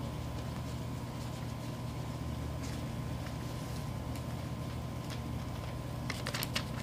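Folded paper slips rustling in a cloth drawstring bag as one is drawn out, then crinkling as it is unfolded near the end, over a steady low hum.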